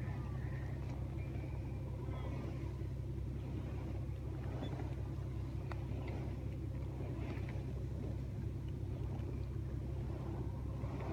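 Strong wind buffeting the microphone as a steady low rumble, with a few faint ticks.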